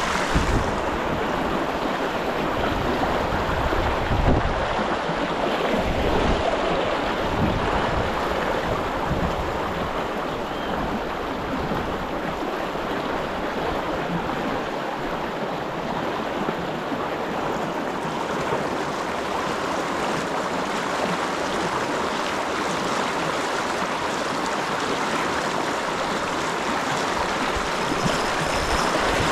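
Shallow river rapids rushing steadily over stones. Wind buffets the microphone with low rumbles, mostly in the first several seconds.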